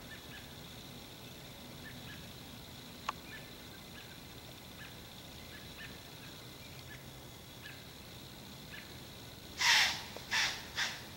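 Faint outdoor background with a steady high-pitched hum and scattered faint chirps, and a single click about three seconds in. Near the end come three short, loud, breathy blasts about half a second apart, from a source that is not seen.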